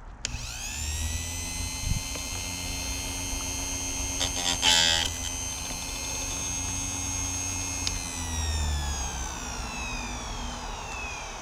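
Chicago Electric electric chainsaw sharpener: its motor spins up to a steady whine, and the grinding wheel grinds a chain tooth for about half a second near the middle. The motor is then switched off, and the whine falls steadily as the wheel spins down.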